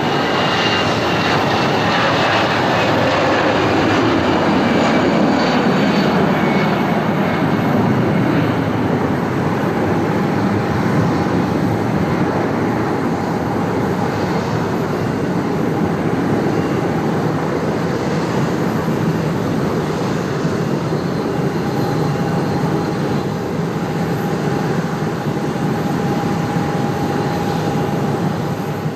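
Airbus A320's twin jet engines at takeoff thrust as the airliner lifts off and climbs away: a steady roar with high whining tones that slide down in pitch over the first few seconds, then slowly fading.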